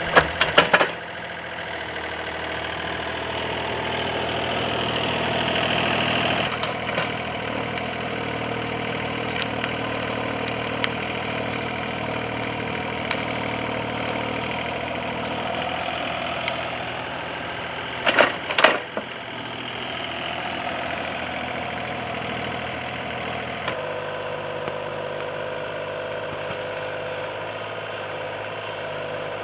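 Compact excavator's diesel engine running steadily, with a cluster of sharp metal clanks just as it begins and another about two-thirds of the way through. The engine note shifts twice.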